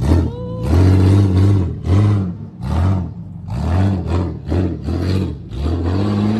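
A vehicle engine revving in a series of about seven short bursts, each rising and falling in pitch, with a brief rising squeak near the start.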